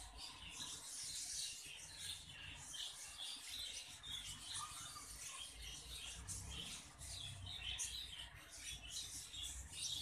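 Budgerigar chick giving faint high squeaks and chirps, several a second, while being fed formula through a tube on a syringe.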